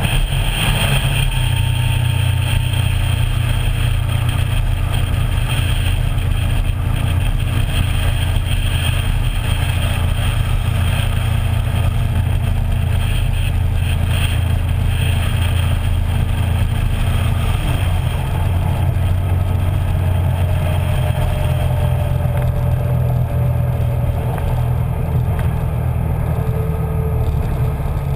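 Small motorboat's engine running steadily while the boat is underway, a loud low drone that holds even throughout, with a slight change in its tone about two-thirds of the way through.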